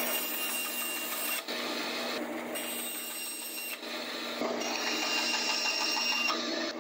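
Bandsaw running with a steady mechanical hum, cutting curved steam-bent wooden strips in half. The sound changes abruptly about one and a half and four seconds in.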